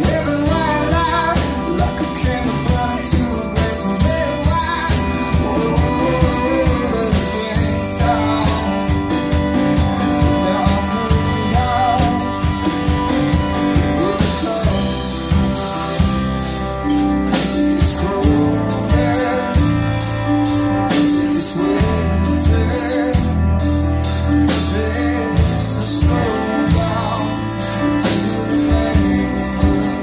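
A live rock band playing: electric guitar, bass guitar, drum kit and a Roland FP-4 digital piano, going without a break.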